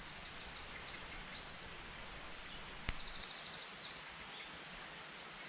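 A single sharp crack of an FX Dreamline .22 pre-charged pneumatic air rifle firing, about three seconds in, over faint birdsong.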